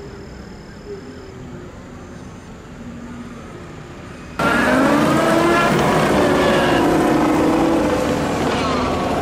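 A motor vehicle's engine running. The sound jumps abruptly much louder a little over four seconds in, with a pitch that slowly rises and falls.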